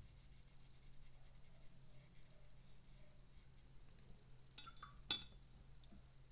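Watercolor paintbrush faintly brushing over paper, then two light clinks about half a second apart near the end, the second one louder and briefly ringing.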